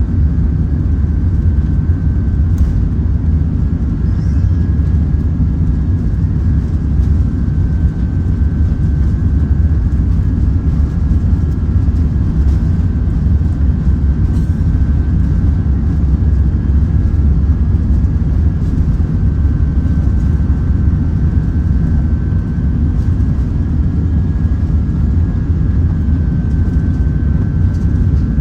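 Airbus A380 engine and airflow noise heard inside the cabin: a loud, steady low rumble with a faint, even whine above it.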